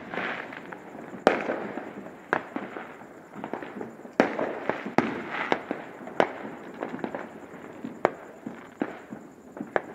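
Fireworks going off: a dozen or so sharp bangs at irregular intervals, with crackling between them.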